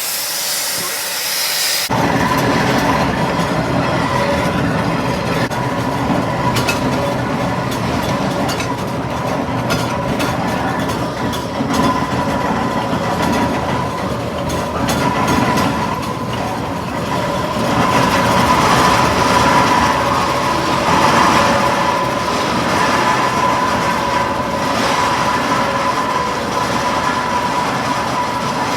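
Fowler BB1 steam ploughing engine: a hiss of steam that stops about two seconds in, then the steady clatter and rumble of the engine travelling on the road, with a constant high whine over it.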